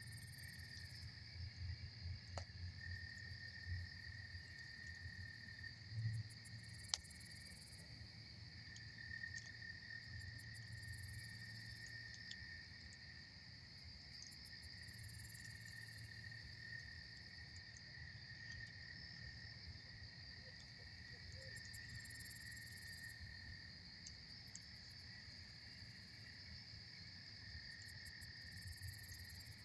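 Campfire crackling faintly under a steady high chorus of night insects, with a sharp pop from the fire about seven seconds in.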